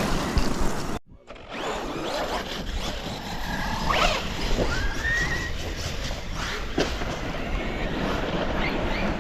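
Electric RC car driving over rough ground, its motor whining up and down in pitch a few times, with knocks from the chassis and tyres. The sound cuts out briefly about a second in.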